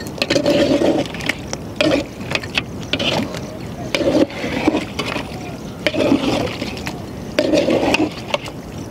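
A metal spoon stirring chicken pieces through a thick, wet yogurt masala in a large metal pot. Squelching, sloshing strokes come about once a second, with light clicks and scrapes of the spoon against the pot.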